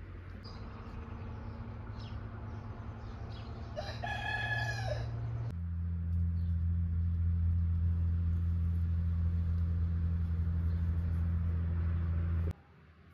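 A rooster crows once, about four seconds in, over a steady low hum. The hum gets louder just after the crow and cuts off abruptly near the end.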